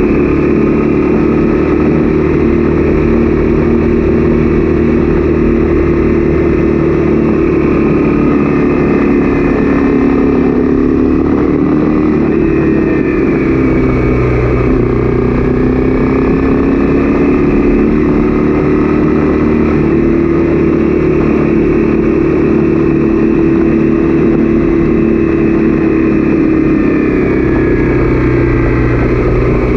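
Honda CB300F's single-cylinder engine running at a steady cruising speed; its pitch dips briefly about halfway through, then climbs back.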